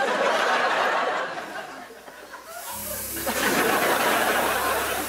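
Studio audience laughing. About two and a half seconds in, a low steady hum and a hiss come in, and the laughter swells again over them.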